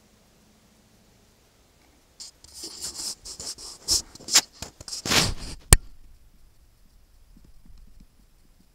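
A burst of crackling and scratching close to the microphone, starting about two seconds in and lasting about four seconds, made of many quick ticks, with one sharp click near its end.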